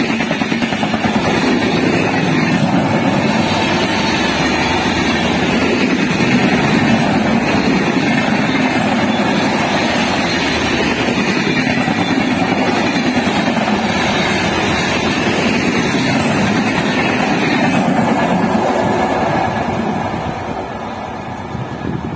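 Passenger coaches of an express train rushing past at high speed: a loud, steady rush of wheels on rails and air. It fades over the last few seconds as the end of the train goes by.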